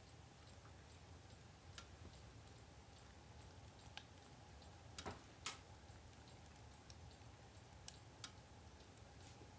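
Near silence: a faint steady hum with a few scattered soft clicks, the loudest two close together about halfway through.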